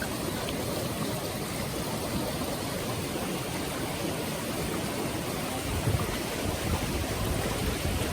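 Small mountain stream rushing and splashing over rocks: a steady, even wash of flowing water, with a couple of low bumps about six seconds in.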